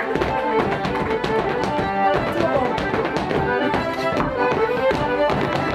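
Fiddle playing a fast dance tune for a rapper sword dance, with rapid, regular percussive clicks from the dancers over it.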